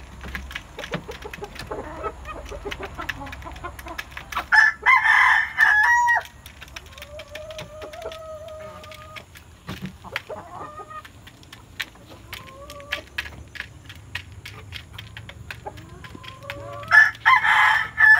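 Chickens pecking grain from a feed trough, a fast patter of sharp taps, with soft clucks in between. A rooster crows loudly twice, about four and a half seconds in and again near the end.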